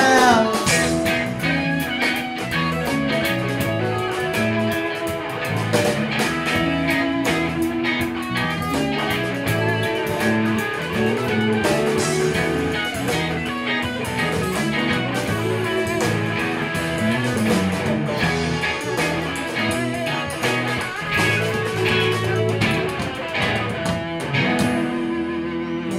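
Live band playing an improvised instrumental jam: several electric guitars over drums. It opens with a loud note sliding down in pitch.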